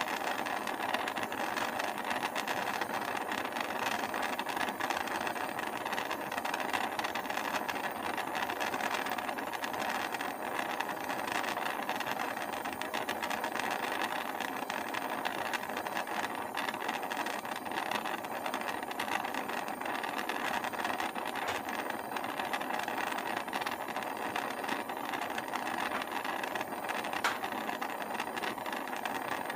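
Gas torch flame hissing steadily under a trivet, heating sifted vitreous enamel on copper until it melts.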